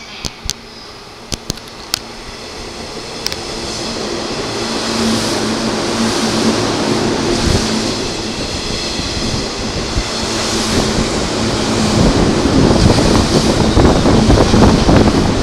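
JR 185-series limited express electric train running through the station at speed. The rush of wheels on rail and air grows steadily louder over a steady low hum as the carriages pass close by, and is loudest near the end.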